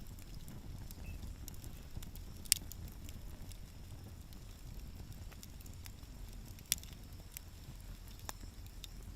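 Wood fire burning in a fire pit, crackling with scattered small pops over a low steady rumble, and two sharper pops about two and a half and seven seconds in.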